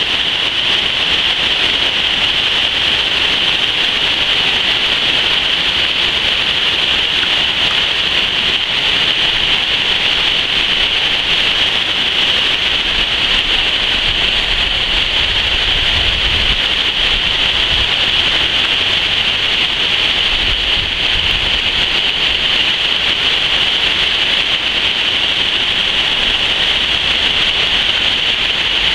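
Waterfall pouring over a dam spillway and rushing through rocky rapids below: a loud, steady rush of water, with a few brief low rumbles around the middle.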